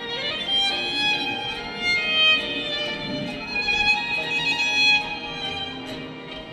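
Samsung Galaxy ringtone playing: an instrumental melody led by violin, with notes changing quickly.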